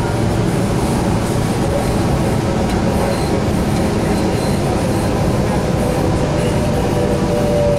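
Inside a Sound Transit Link light rail car running between stations: a steady, loud rumble of wheels on rail and running gear. A thin steady whine sits above it and grows a little stronger near the end.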